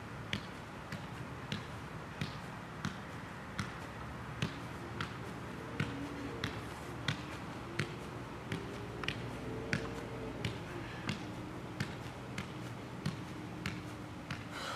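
A size one soccer ball being juggled with the feet: a steady run of light taps about one and a half a second, one for each touch that keeps it in the air.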